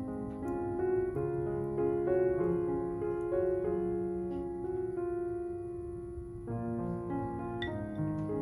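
Gentle background piano music, single notes and chords changing every half second or so, with a few faint clicks.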